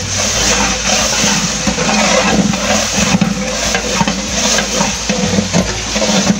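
A long-handled metal spatula stirring rice and meat in cooking liquid in a large metal pot, with steady sloshing and sizzling and the scrape of metal against the pot.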